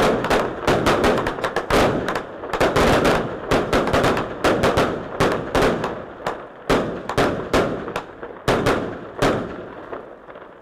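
A long run of sharp bangs and cracks, several a second, thinning out and fading over the last few seconds.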